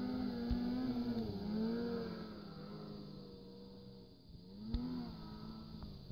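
Snowmobile engine revving up and down as the sled carves turns, its pitch rising and falling in several swells. It dies down after about three seconds, then swells once more near five seconds.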